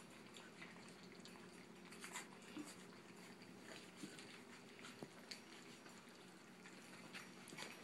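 Faint wet lapping and slurping of a litter of Brittany puppies eating soupy ground puppy food from a steel pan, with a few scattered small clicks.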